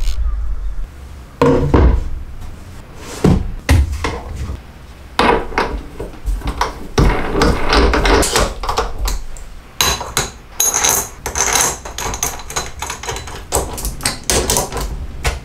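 Hand assembly of a belt sander attachment on a switched-off angle grinder: irregular knocks and clicks as a wooden drum and metal parts are fitted. A rapid run of bright metallic clicks follows in the second half, as a bolt is tightened with a small socket tool.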